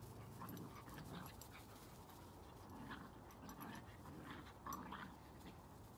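Faint sounds of a whippet and a vizsla puppy wrestling in play: panting and short, soft dog noises coming and going, the loudest just before five seconds in.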